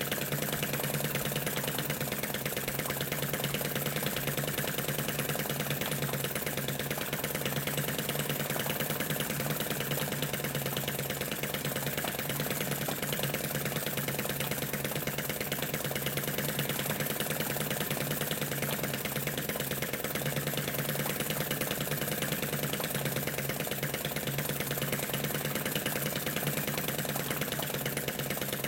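Model flame-eater (flame-licker) engine in a Lanz Bulldog tractor model, running steadily and belt-driving a model oil-field pump jack and a small generator.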